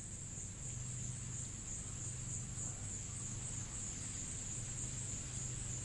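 Insects giving a steady, high-pitched continuous trill in forest ambience, over a faint low hum.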